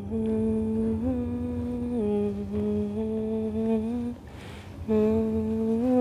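A woman humming a slow tune, holding each note for about a second, with a short pause for breath about four seconds in.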